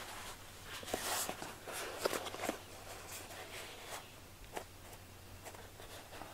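Faint rustling and light handling noises with a few soft taps as a spongy foam Elizabethan collar is bent and fastened by hand, over a steady low hum.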